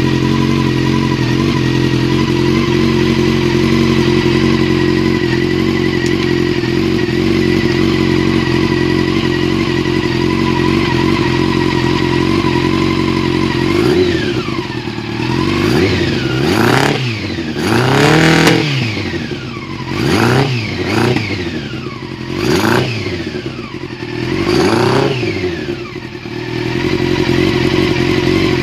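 Yamaha R6 inline-four engine idling steadily, then revved in a series of quick throttle blips from about halfway through before settling back to idle. The owner says the bike is misfiring.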